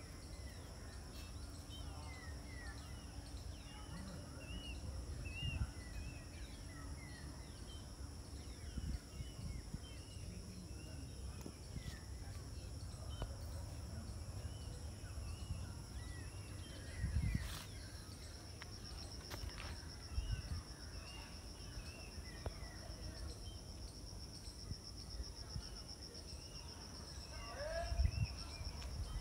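Garden ambience: insects droning in a steady high pitch while small birds chirp over and over, above a low rumble. A steady pulsing trill joins the drone about two-thirds of the way in, and a couple of dull thumps come near the middle and the end.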